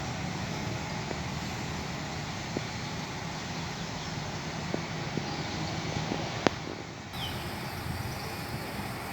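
Steady engine rumble of machinery on a pile-driving site, with a few light clicks and one sharp click about six and a half seconds in.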